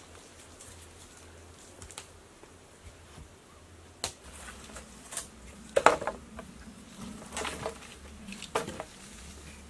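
Scattered wooden knocks and thuds as a log and bamboo poles are handled and set in place over the pit. The knocks come irregularly, and the loudest is a quick cluster about six seconds in.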